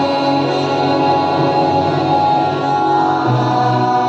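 Choir singing with instrumental accompaniment: held notes that change slowly, with a lower bass note coming in about three seconds in.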